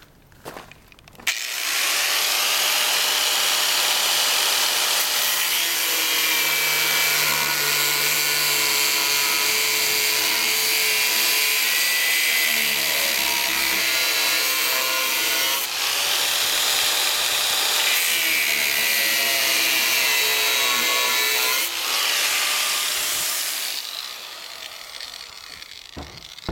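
Angle grinder with a thin cut-off (zip) disc cutting through 3/16-inch steel angle iron: it starts about a second in, then gives a loud steady grinding with a high whine that wavers as the disc bites, easing off briefly twice. Near the end the cut stops and the sound drops and tails away.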